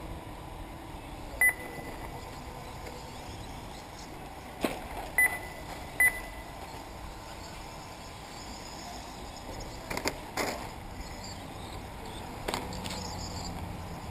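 Three short, high electronic beeps, the loudest sounds here: one about a second and a half in, then two close together around five to six seconds. Between them are a few sharp clicks, over a steady outdoor background hum.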